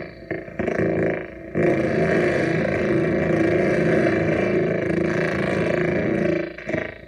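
Homemade Atari Punk Console–style touch noise synth with built-in echo/delay, played by fingers bridging its metal touch contacts: a loud, steady drone of many stacked tones. It cuts out briefly twice in the first second and a half and falters again near the end.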